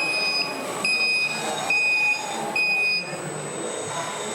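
Reversing alarm of a radio-controlled scale truck beeping steadily, a little under one beep a second, four beeps, then it stops about three seconds in.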